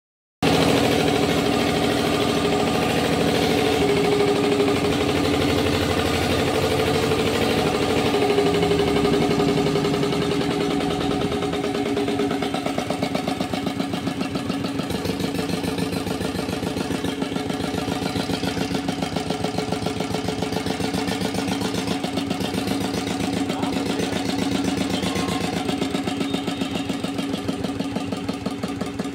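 Single-cylinder diesel pump engine running steadily with an even, rapid chugging beat, its rocker cover off. The beat becomes a little quieter and more distinctly pulsed after about twelve seconds.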